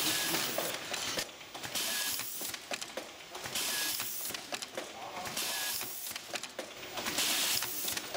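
Mectec T50 tamp-and-blow label printer and applicator running, with mechanical clicking and short bursts of air hiss about once a second as labels are applied to items on the conveyor.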